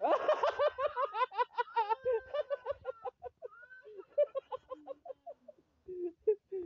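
A person laughing in a quick run of short ha-ha notes, loud for the first two or three seconds, then trailing off into softer, scattered laughs.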